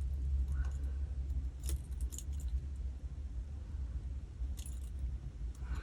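A few faint, light metallic clicks and ticks as tiger tail beading wire is threaded back through a crimp bead and jump ring, over a steady low hum.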